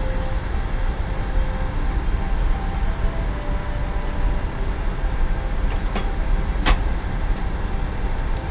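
Steady low rumble of a car engine idling with the cooling running, heard inside the cabin, with two sharp clicks about six and a half seconds in.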